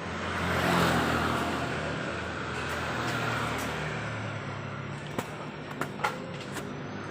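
A motor engine running steadily, fading out about four seconds in, followed by a few sharp clicks.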